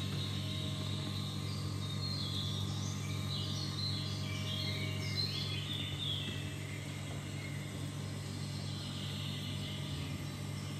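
Steady low hum of room machinery, with faint bird-like chirps from about two to seven seconds in.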